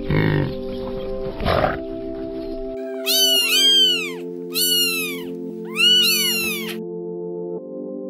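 A water buffalo makes two short noisy sounds, then a kitten meows three times, each meow rising and falling in pitch, over steady background music.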